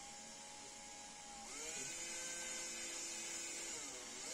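Electric hand drill running while drilling into wood, its motor whine stepping up in pitch about a second and a half in and dropping again near the end.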